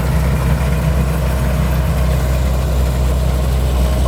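Combine harvester's diesel engine running steadily with a constant low hum.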